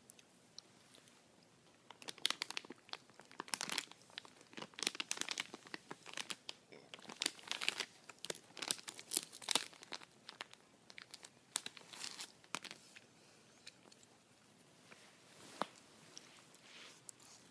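A crinkly gummy bear bag being crumpled and handled up against the microphone. It makes dense crackling from about two seconds in, which thins out to scattered crinkles after about thirteen seconds.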